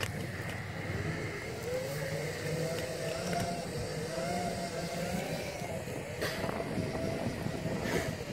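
Segway's electric drive motor whining, its pitch wandering up and down with speed, over a rough low rumble while riding over rough grass. A couple of short knocks come near the end.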